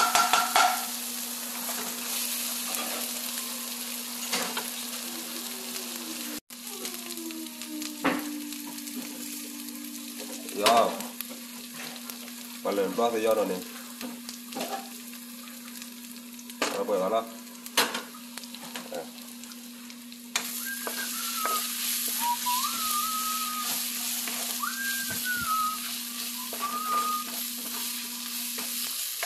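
Chopped aromatics, lemongrass and chilli flakes sizzling in oil in a nonstick frying pan, stirred and scraped now and then with a wooden spatula. A steady low hum runs underneath.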